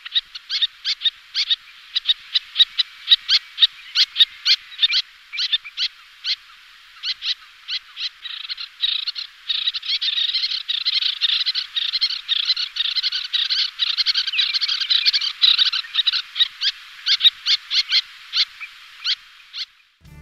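Little terns calling: a run of short, sharp, high calls, two or three a second, that thickens into dense overlapping chatter in the middle, then thins back to single calls and stops just before the end.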